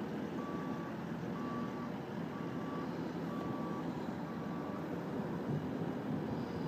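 A backhoe loader's reversing alarm beeps five times, about once a second, over the steady running of its engine.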